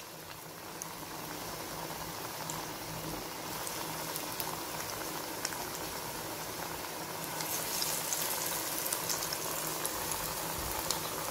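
Vadai patties deep-frying in hot oil in a kadai: a steady bubbling sizzle with scattered sharp crackles, growing a little louder about seven seconds in.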